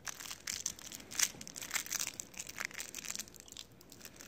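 Cellophane candy wrappers crinkling and crackling in a hand held close to the microphone, as fireball candies are unwrapped. The crackles come irregularly, the sharpest about a second in.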